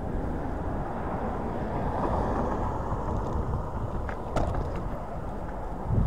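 Wind buffeting the microphone over the rumble of an electric scooter riding on pavement, with a couple of sharp clicks, like rattles over a bump, about four seconds in.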